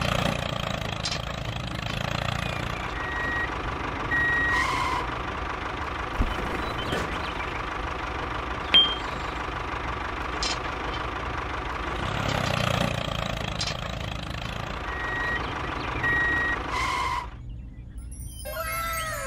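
Steady running of a small vehicle engine, with a pair of short high beeps about three seconds in and again near fifteen seconds. Near the end it cuts off suddenly and gives way to a string of falling chirps.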